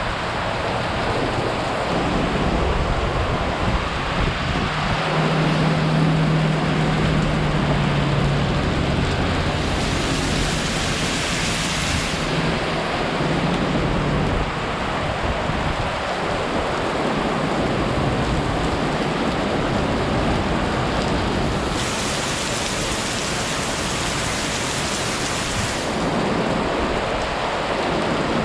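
Heavy typhoon rain and wind making a loud, steady rushing noise, with a low steady hum underneath for several seconds in the first half.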